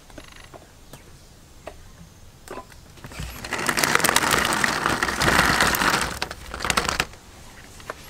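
Eggs tumbling into a woven wicker basket, a dense run of clattering and rustling that starts about three seconds in and lasts about four seconds.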